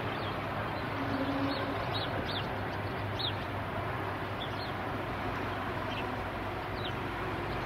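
Steady hum of road traffic with short, high, falling chirps of small birds scattered through it.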